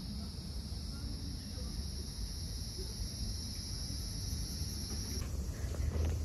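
Cicadas droning steadily in the trees, a continuous high buzz that stops abruptly about five seconds in, over a low rumble.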